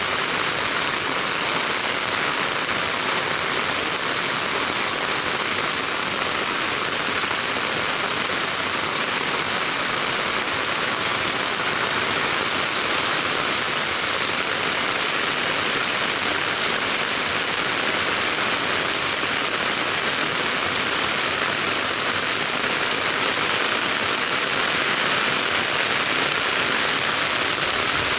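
Rain falling steadily, a dense even hiss that holds at the same level throughout.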